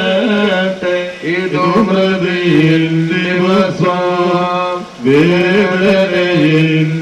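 Men's voices chanting a funeral hymn in slow, held notes that bend gently in pitch, with a short break for breath about five seconds in.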